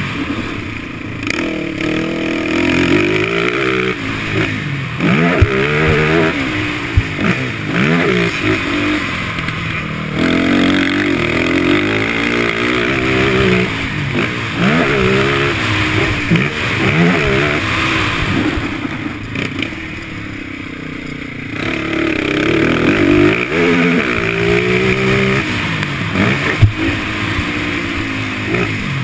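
ATV (quad) engine revving hard on a dirt track, its pitch climbing and dropping over and over as the throttle is opened and closed through the gears, with a few sharp knocks from bumps and stones. It eases off to a quieter stretch about two-thirds of the way through before pulling hard again.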